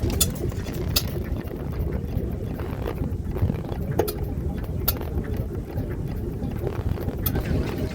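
Vintage stationary engines running at steady speed, a dense low chugging, with a few sharp irregular clicks over it.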